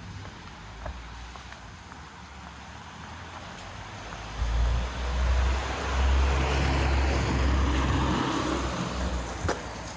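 A car driving past on the street: engine rumble and tyre noise swell about four seconds in, stay loud for several seconds, then fade near the end.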